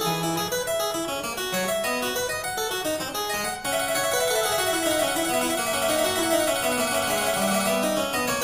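Background keyboard music with quick running notes, briefly dipping about three and a half seconds in before continuing with a fast repeated note.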